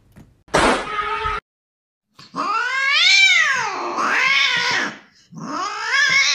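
Cat yowling: two long, drawn-out calls that rise and then fall in pitch, starting about two seconds in. A short harsh noisy burst comes before them, near the start.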